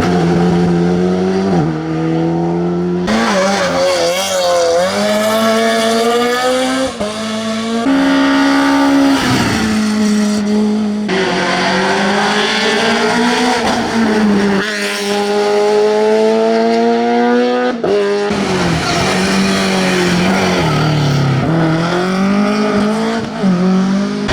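Classic rally car engines revving hard on a tarmac stage, pitch climbing and dropping through gear changes, heard in several short passes that cut abruptly from one to the next.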